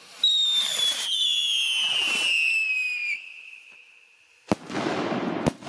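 A whistling firework: a high whistle sliding steadily down in pitch for about three seconds. Near the end come two sharp bangs about a second apart, with a hiss between them.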